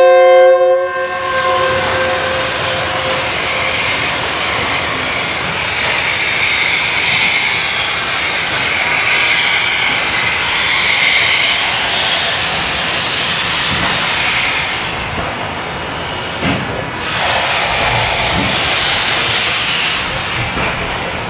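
SY-class 2-8-2 steam locomotive: a steady whistle note dies away in the first couple of seconds, followed by a loud, steady hiss of steam as the locomotive starts a passenger train away from the station.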